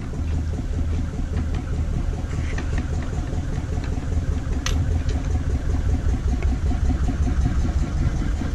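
Narrowboat's diesel engine running steadily at low revs with an even throb. A single sharp click about halfway through.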